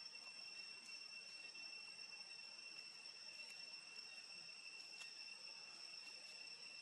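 Faint, steady, high-pitched insect drone, one unbroken tone with a higher overtone above it, broken only by a few faint ticks.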